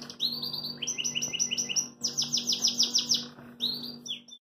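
A songbird singing in trills: several runs of rapidly repeated high chirps, about six a second, each run on a different note. The song cuts off suddenly near the end.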